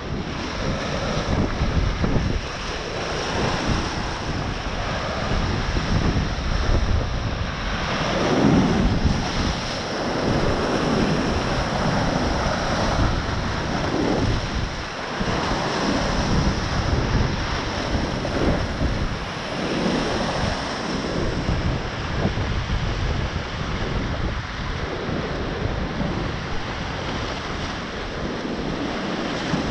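Ocean surf breaking and washing over lava rocks, swelling and easing in repeated surges, with wind buffeting the microphone.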